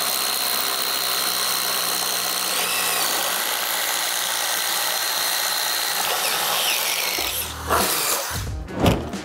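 Two DeWalt cordless impact drivers, the compact Atomic DCF850 and the XR DCF887, run together boring 1-inch self-feeding paddle bits through 2x4 lumber, a steady loud power-tool noise with a thin high whine. About seven seconds in the sound changes: one driver breaks through and stops, and a few louder knocks follow as the other finishes.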